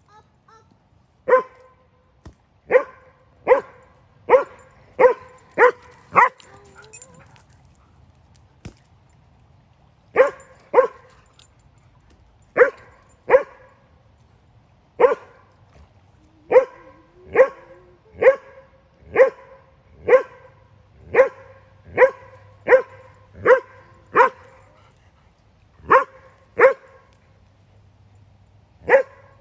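Standard poodle barking repeatedly: single sharp barks of the same pitch, about one to two a second, in runs broken by a lull a few seconds long near the start.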